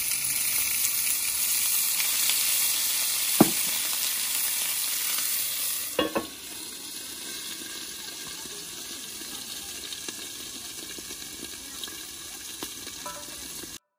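Food sizzling in a frying pan, a steady hiss with a sharp knock of a utensil against the pan about three and a half seconds in and another about six seconds in. After the second knock the sizzle goes on quieter, and it cuts off just before the end.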